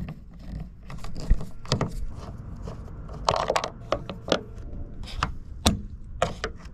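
Irregular clicks, knocks and scrapes of hand tools and car parts being handled.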